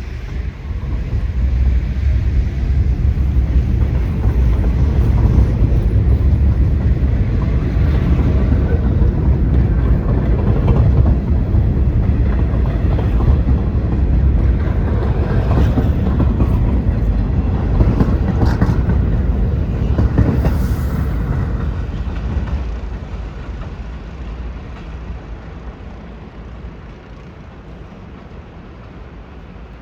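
New York City subway train running past close by, a loud, heavy rumble of wheels on rail with scattered clicks, building up about a second in and dying away after about twenty seconds.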